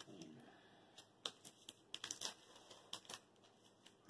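Chocolate bar wrapper being handled and opened by hand: faint, irregular crinkles and sharp crackles, about ten over a few seconds.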